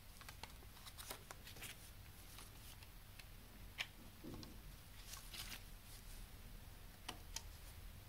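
Faint handling of a CD single: a paper obi strip rustling and a plastic jewel case clicking as it is opened and the disc lifted out, the sharpest click about four seconds in.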